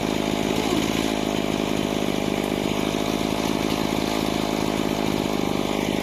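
Stihl MS 180 two-stroke chainsaw running steadily at high speed.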